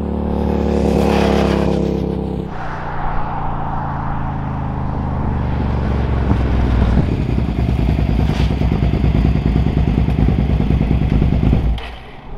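Sport motorcycle engine running at speed on the road, loud and steady. Its note changes abruptly about two and a half seconds in and again about seven seconds in, and it drops away just before the end.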